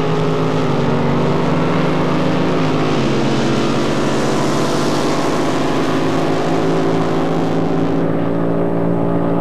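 Racing drag boat's engine running loud and steady at high revs, its pitch shifting slightly about three seconds in.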